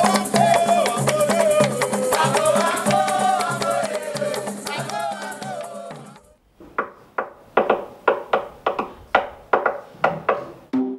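Dance music with a singing voice over a steady drum beat, fading out about six seconds in. Then a tall wooden hand drum is struck with bare hands in a steady rhythm, about three sharp strokes a second.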